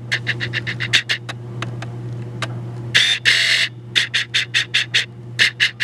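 Camera lens autofocus hunting: runs of rapid, even clicks, about eight a second. A short burst of hiss comes about three seconds in, over a steady low hum.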